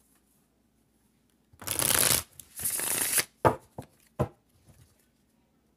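Tarot cards being shuffled in two short bursts, followed by three sharp taps.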